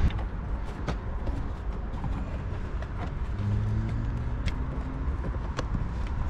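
Handling noise while a dashcam power cable is worked behind a car's plastic interior trim: a steady low rumble with a few sharp clicks and taps of plastic.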